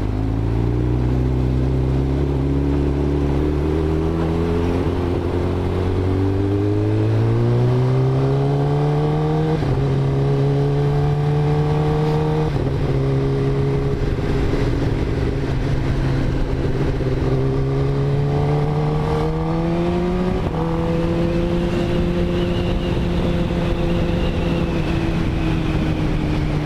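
Kawasaki Ninja ZX-10R inline-four engine pulling through the gears: its pitch climbs, drops back at gear changes about ten and thirteen seconds in, climbs again, then holds nearly steady at cruising speed over the last six seconds, with wind rush over it.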